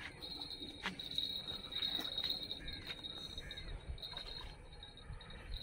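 Insects chirring in a steady, high, slightly pulsing buzz, with a few faint bird calls and scattered light clicks. A few low thumps come near the end.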